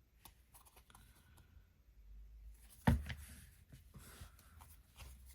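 Baseball trading cards being handled: faint rustles and light clicks, with one sharper tap about three seconds in.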